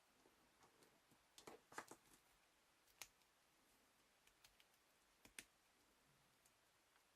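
Mostly near silence with faint, scattered clicks and taps of plastic being handled: a short cluster about a second and a half in, then single sharp clicks about three and five seconds in, as from an action figure's joints and parts being moved.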